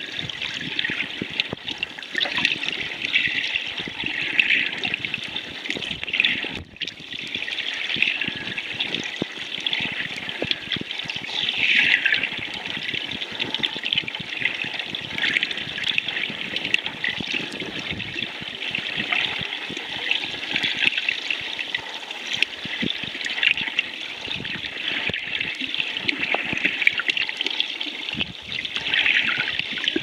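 Shallow sea water recorded underwater: a steady, crackling, trickling wash, dotted with many small clicks.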